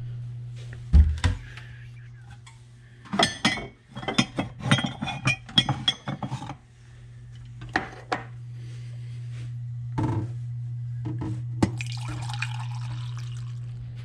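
Clinking and clattering of a ceramic mug and a coffee-maker carafe being handled on a kitchen counter, then coffee being poured from the carafe into the mug near the end, over a low steady hum.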